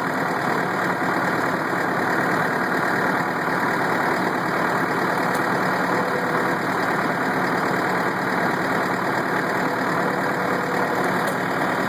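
Tractor engine running steadily while pulling a grape weed sprayer through the vineyard rows.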